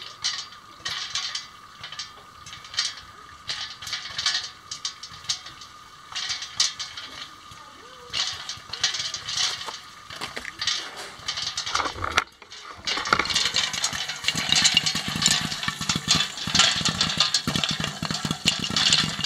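Popcorn popping in a covered metal pot, kernels hitting the lid: scattered pops at first, then much louder and dense, rapid popping about two-thirds of the way through.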